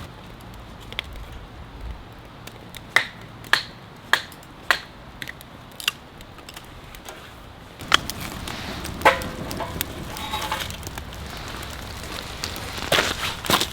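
Firewood burning, crackling with a scatter of sharp pops a second or so apart.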